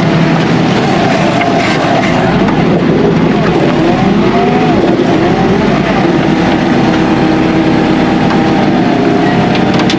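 Tractor engine running steadily under load, driving a rear-discharge spreader, its pitch wavering up and down.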